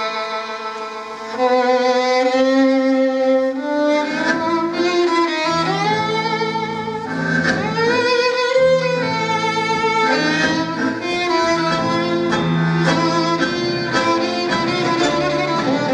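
Live tango orchestra playing, a violin carrying the melody with wide vibrato over a bowed bass line. The music swells about a second and a half in.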